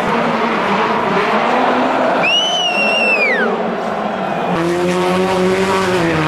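Rally car engines running hard, with a high squeal about two seconds in that holds for about a second and then falls away. Then a Subaru Impreza rally car's engine holds a steady high-revving note that dips near the end.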